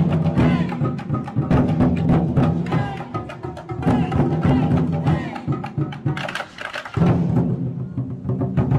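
An ensemble of large Chinese tanggu barrel drums beaten with wooden sticks in a fast, loud pattern. The drumming eases off briefly about six and a half seconds in, then comes back in at full force.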